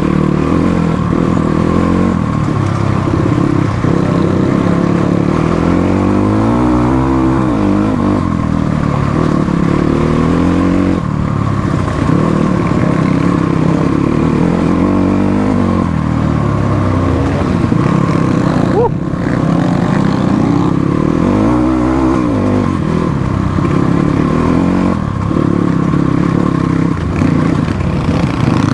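Motorcycle engine running throughout, its pitch rising and falling over and over as the throttle is opened and eased.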